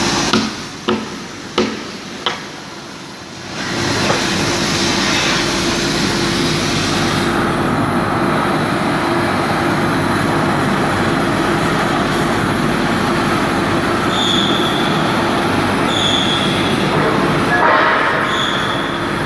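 Steel being cut off a worn Caterpillar D6N bulldozer blade: four sharp metallic knocks in the first couple of seconds, then a steady loud hissing rush of cutting. Three short high squeaks come near the end.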